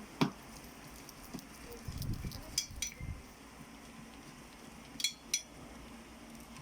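Several sharp clicks and clinks of small hard objects being handled: one loud click just after the start, a few more around the middle, and two close together about five seconds in.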